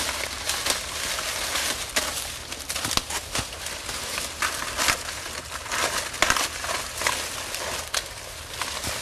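Dry corn stalks and leaves rustling and crackling as ears of corn are picked by hand, with sharp snaps throughout.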